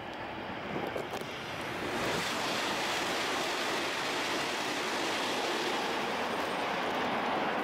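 E5 series Shinkansen passing at high speed by a tunnel mouth: a rushing roar of wind and running noise that swells about two seconds in and then holds loud and steady.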